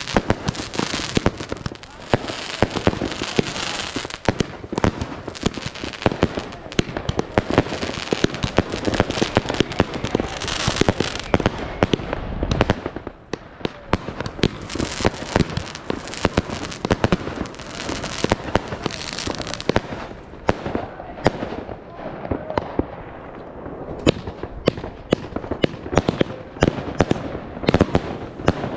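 New Year's Eve fireworks going off in a dense barrage: rapid bangs and crackling from shells bursting overhead, with a brief lull about twelve seconds in.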